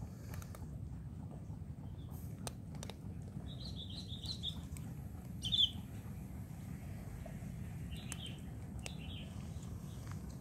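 Short bird chirps in the background: a cluster about four seconds in, the loudest just before six seconds, and more around eight to nine seconds. Under them, scattered crisp clicks of cats crunching dry kibble and a steady low rumble.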